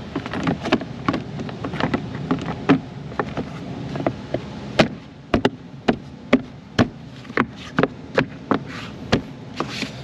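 A run of sharp, irregular clicks and knocks of hard plastic trim, the frunk tray and cowl panel being handled and pressed back into place.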